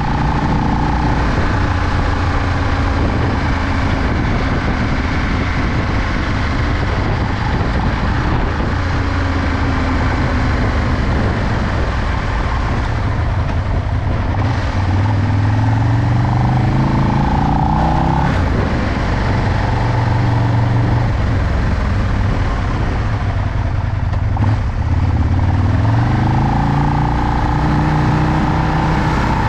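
Aprilia RSV 1000 R Tuono's 60-degree V-twin engine running while the bike rides along. The revs climb twice, once around the middle and again near the end.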